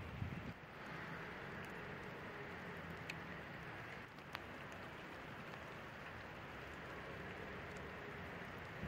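Steady rain falling, an even hiss with a couple of sharp drop clicks, over a low hum.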